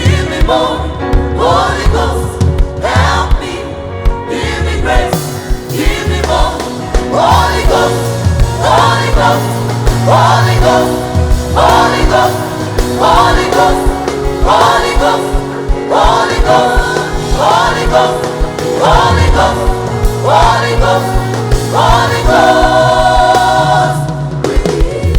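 Live gospel worship music: a choir singing over a band with a steady beat.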